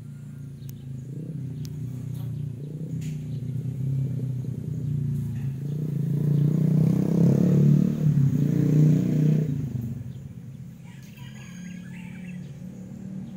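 A motor vehicle passes by, its engine hum growing louder for several seconds and then fading away about ten seconds in. Birds chirp now and then.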